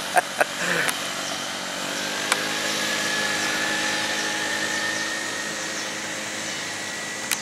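Small motor scooter's engine running as it is ridden along the road, a steady hum that rises slowly in pitch, grows louder towards the middle and eases off near the end. A few quick clicks sound in the first half second.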